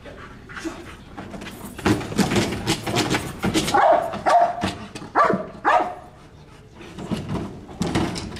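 Police dog barking in a run of sharp barks, the loudest about four to six seconds in, with a few more near the end.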